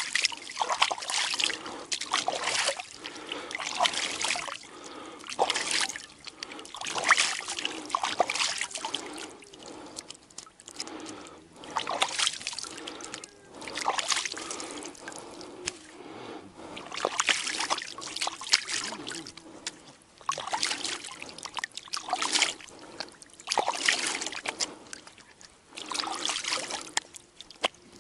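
Water being tipped out of a large bucket, splashing and trickling in repeated gushes about every one to two seconds.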